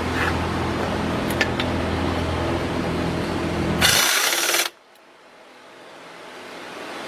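Pneumatic impact gun driving a 13 mm caliper bracket bolt: a steady whir for about four seconds, then a short, loud burst of hammering as the bolt snugs tight. After that it is quieter, building up again near the end.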